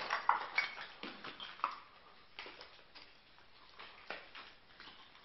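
Footsteps over loose stones and rubble in a rock tunnel: irregular crunches and clinks of stone, thinning out after about two seconds.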